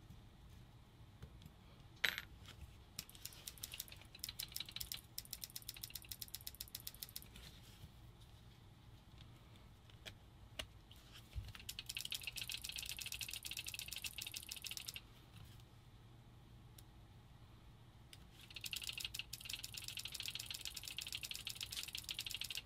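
Ratcheting screwdriver clicking in three quick runs of rapid, even ticks, with a single sharper click before the first, as the screws holding the paintball marker's back plate are driven in.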